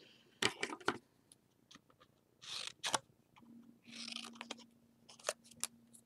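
Small scissors cutting a scrap of paper into a little beak shape: a few short clusters of crisp snips.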